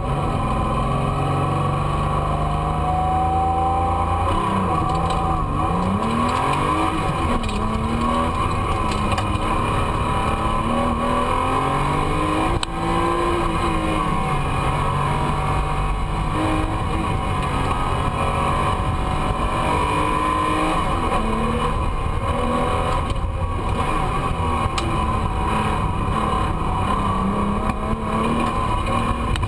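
Porsche 911's flat-six engine heard from inside the race car's cabin, revving hard through the gears at racing speed, its pitch climbing and dropping again and again with each shift and corner.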